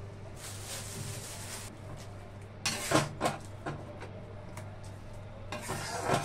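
A metal ladle stirring grated potato and onions in water in a kadai, knocking and scraping against the pan in a cluster about two and a half seconds in and again near the end, over a steady low hum.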